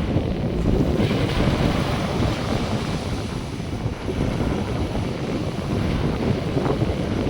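Wind buffeting the microphone in gusts over the steady wash of North Sea surf breaking on the beach.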